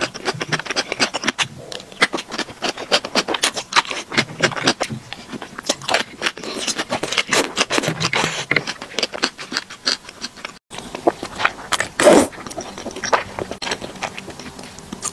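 Close-miked mukbang eating sounds: slurping and chewing strips of gongcai (tribute vegetable) in chili oil, with many quick wet mouth clicks. After a brief break about ten and a half seconds in comes one louder long slurp of thick sweet-potato noodles.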